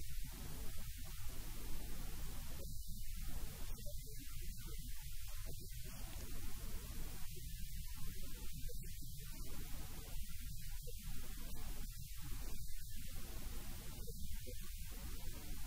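Steady low electrical mains hum with a faint hiss, on an otherwise quiet studio sound track.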